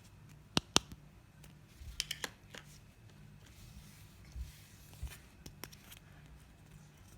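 Sharp clicks and taps of small toy kitchen pieces and their packaging being handled: two loud clicks just after half a second in, a quick cluster around two seconds, and a few lighter ones later.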